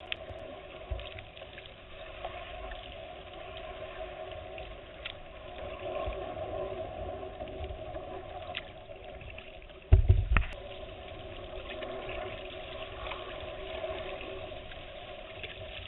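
Water lapping and trickling around a kayak hull as it glides through lake reeds. A brief dull thump about ten seconds in.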